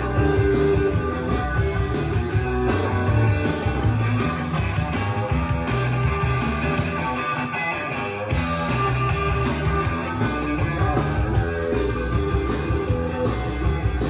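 Rock music with prominent guitar, played on a hi-fi system during a cassette deck recording test. The treble briefly dulls about seven seconds in.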